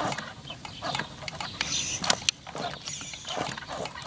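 Axial RR10 Bomber RC rock crawler working its way up a boulder: the electric motor and geared drivetrain whir in short irregular bursts under load as the tires scrabble on the rock, with two sharp clicks about two seconds in.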